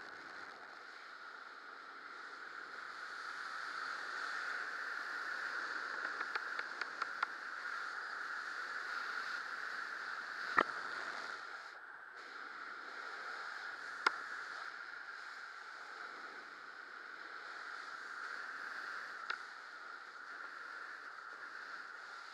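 Wind rushing over a camera carried in fast speed-wing flight, swelling and easing, with a few sharp clicks, the loudest about ten seconds in.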